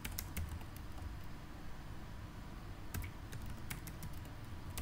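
Typing on a computer keyboard: a quick run of key clicks at the start, a pause of about two seconds, then another run of clicks.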